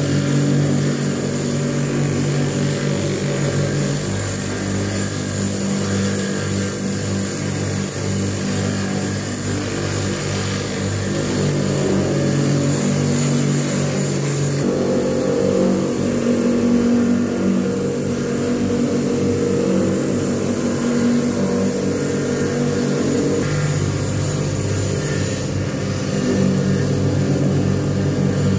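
Bench polishing motor running steadily with a steel sword blade pressed against the cylindrical polishing wheel on its spindle, a constant hum with rubbing noise over it; the hum's tone shifts twice.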